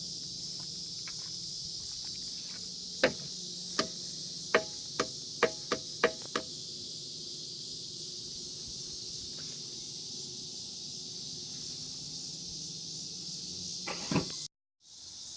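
A quick series of about eight sharp clicks and knocks from the Saab 9-5's fuel filler door being worked, over steady high-pitched cricket chirping. A single louder knock comes near the end.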